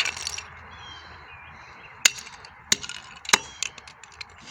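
A few sharp knocks and clacks of hard objects being handled, about four of them spaced through the second half, over a steady background hiss.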